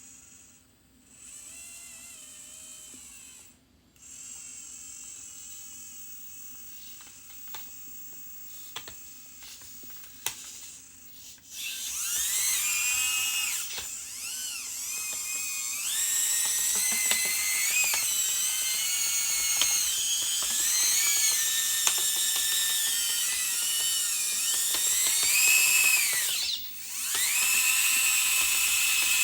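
Small electric motors and gearboxes of a radio-controlled model construction vehicle whining, the pitch rising and falling as it drives and works. Fainter at first, much louder from about a third of the way in, with a brief break near the end.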